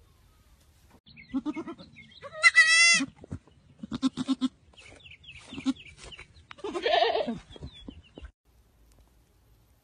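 Goat kid bleating: a series of calls, the loudest a high bleat about two and a half seconds in and another long one near seven seconds, with shorter calls between.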